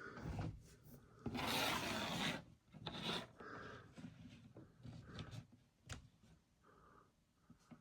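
Rubbing and scraping from hands handling a plastic action figure and its gear. The loudest scrape comes about a second and a half in, and there is a sharp click about six seconds in.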